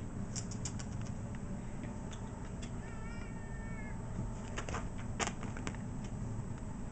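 A domestic cat meows once, a single high, fairly flat call lasting about a second, around three seconds in. Several light clicks and taps come before and after it.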